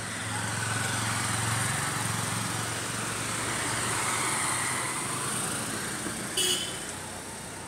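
Auto-rickshaw engine running as it passes along the street, over steady road noise. The engine hum swells and then fades. A brief, sharp sound comes about six seconds in.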